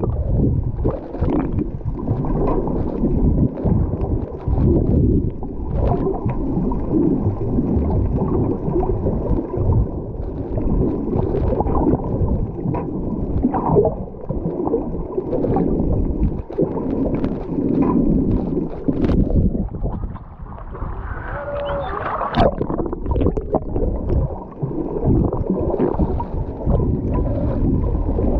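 Muffled underwater water noise picked up by a camera held just below the surface: water sloshing and gurgling around it, with scattered small clicks and crackles.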